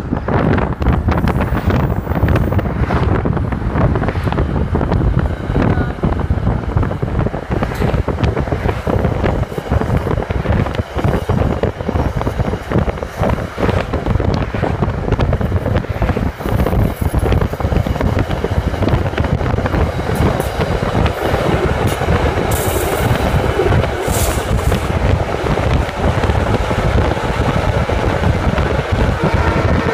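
Diesel-hauled commuter train running alongside at speed, its rumble and wheel clatter mixed with the wind and road noise of a car pacing it. A couple of brief high-pitched hisses or squeals come through about two-thirds of the way in.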